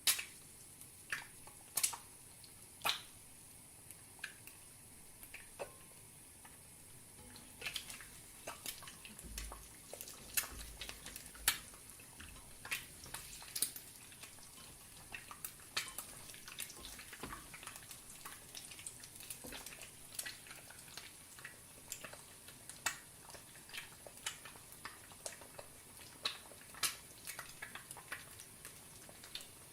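Eggs frying in a pan: a faint steady sizzle with irregular sharp pops and crackles of spitting fat, which come more often after the first several seconds.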